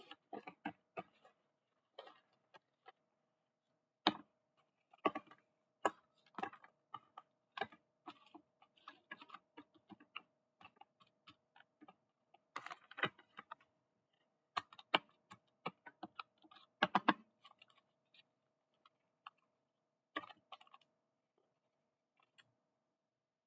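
Hands handling small stationery items and their plastic packaging: scattered irregular clicks, taps and brief crinkles with short pauses, over a faint steady hum.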